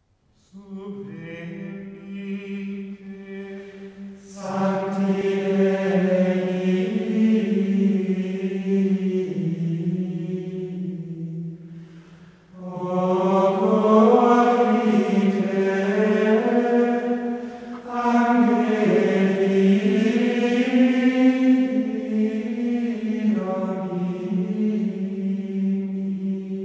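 Background music of slow vocal chant: voices hold long sustained notes in unhurried phrases, with brief breaks between phrases about 4, 12 and 18 seconds in.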